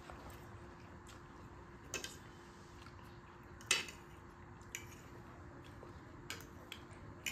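Metal forks clinking and scraping against a ceramic plate as noodles are picked up, a handful of sharp clinks with the loudest about halfway through.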